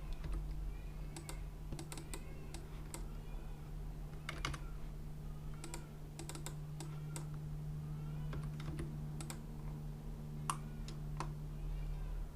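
Typing on a computer keyboard: irregular keystrokes, often in quick runs of a few, over a steady low hum.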